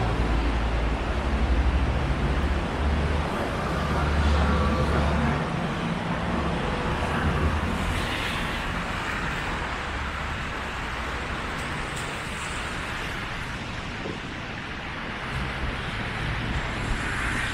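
Busy city street traffic noise: cars and other vehicles passing. A low engine rumble is strongest in the first half, then fades.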